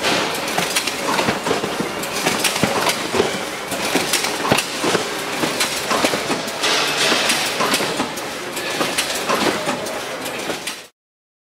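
Marden Edwards BX100FF overwrapping machine running, overwrapping cartons in film: a dense mechanical clatter with many sharp clicks over a hiss. It cuts off abruptly near the end.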